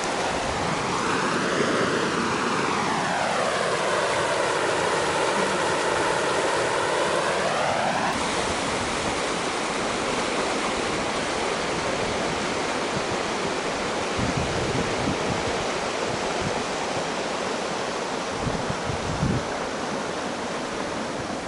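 Water rushing through a river dam's spillway gates, a steady loud rush. For about the first eight seconds it has a hollow, sweeping tone that rises, dips and rises again, then cuts off suddenly.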